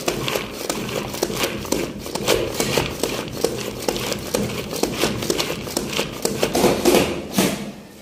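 Hand-operated plastic food chopper working, its blades chopping red onion in the bowl: a fast, irregular run of clicks and rattling knocks that stops shortly before the end.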